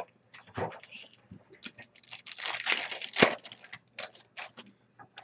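Foil wrapper of an O-Pee-Chee Platinum hockey card pack being torn open and crinkled by hand, in irregular rustles with one sharp rip a little after three seconds in.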